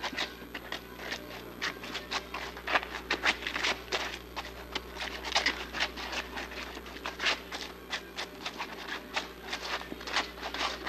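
Shoes tapping and scuffing on a concrete floor in quick, irregular steps, as if stamping or dancing, over a steady low hum.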